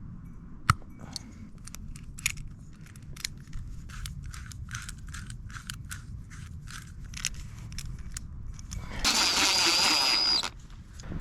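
Small sharp clicks, two or three a second, from hand work on the pins of an electrical wiring connector. Then a loud hiss with a thin high whistle in it, lasting about a second and a half near the end.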